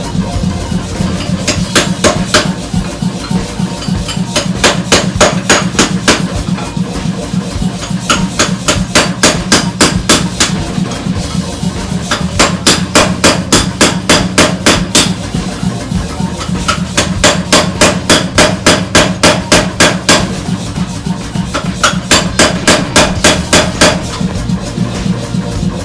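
A pneumatic power hammer striking hot steel in bursts of rapid, evenly spaced blows, about four a second, each burst lasting two to three seconds with short pauses between, over a steady low hum.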